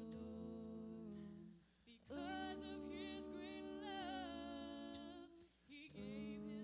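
Slow vocal music: a singing voice holding long notes in phrases a few seconds long, with two short breaks between phrases.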